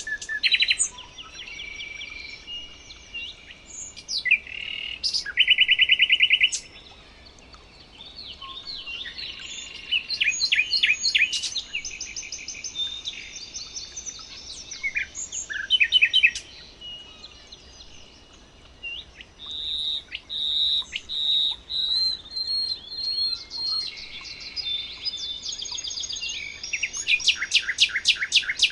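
Several songbirds singing and chirping at once: overlapping rapid trills, repeated whistled notes and short chirps. There is a steady low hiss of background noise beneath them.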